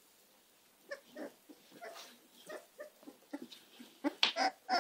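Young American Staffordshire terrier puppies making short, irregular calls, with a louder quick run of them near the end.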